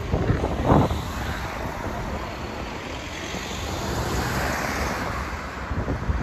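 Outdoor traffic noise with wind rumbling on the microphone, and a broad hiss that swells and fades about four to five seconds in.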